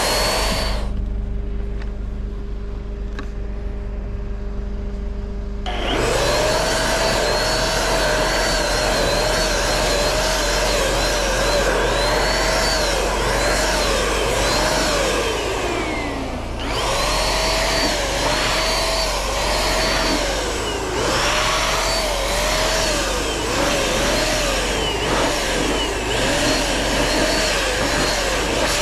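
Handheld electric paint sprayer (Penkiya-kun) running with a steady whine whose pitch dips and recovers again and again while paint is sprayed. It cuts out to a low hum about a second in and starts again some five seconds later; past halfway it winds down briefly and starts up again.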